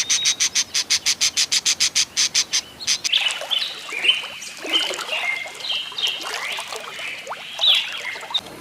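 A fast, even rattle of about nine pulses a second for the first three seconds, then several birds chirping and calling over one another.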